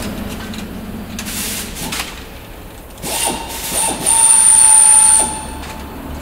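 A power drill whining in a few short starts about three seconds in, then a longer steady run of about a second, typical of drilling holes in aluminium airframe cleats for riveting.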